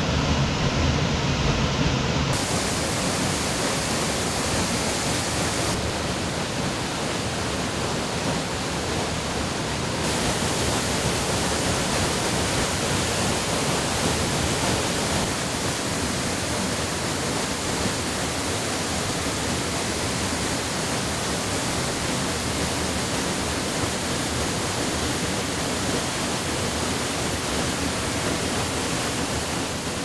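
Waterfall pouring into a rock pool: a steady rush of falling water that changes a little in tone a few times in the first ten seconds.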